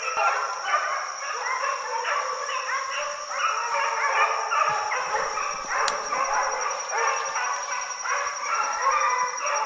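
A pack of deer hounds baying and yelping without a break, many voices overlapping: the dogs are in full cry on a deer's trail. A steady high-pitched whine runs underneath.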